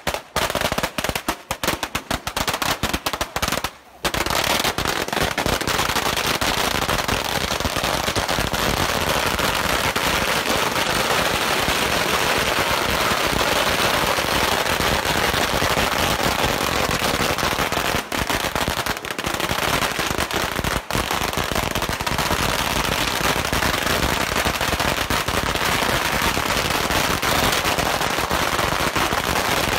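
Long strings of firecrackers exploding at close range. Separate sharp bangs come in the first few seconds, then from about four seconds in they merge into one dense, unbroken crackle.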